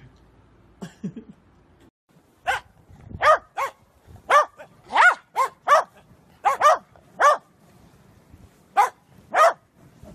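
Dogs barking: about a dozen barks in quick, uneven succession, starting about two seconds in, after a brief low sound about a second in.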